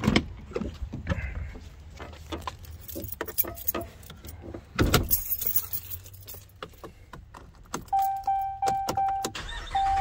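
Pickup truck driver's door latch clicking open, then rustling and a thump as someone climbs into the cab, with keys jangling. Near the end an electronic dash warning chime beeps several times and then holds steady, the chime of a key in the ignition with the door open.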